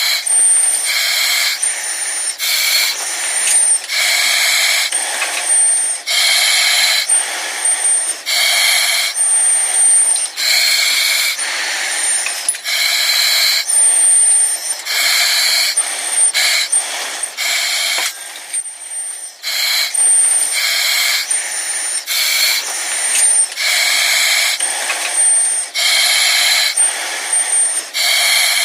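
Breathing through an oxygen mask: airy hissing breaths, one after another every second or two, many with a brief high whistle.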